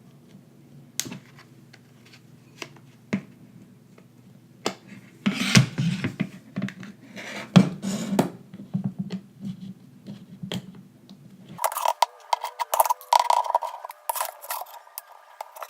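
Scattered clicks, taps and short scrapes of a suction cup and pick working an iPhone 6 display loose from its adhesive. Near the end the sound turns thinner and higher-pitched, a quick run of small clicks.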